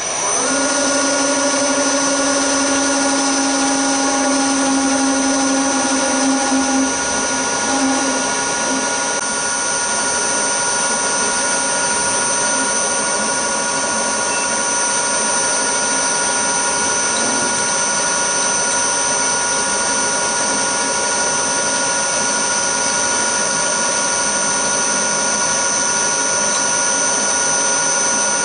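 Milling machine spindle starting up and then running steadily, a steady whine made of several held tones. A lower hum under it fades out about eight seconds in.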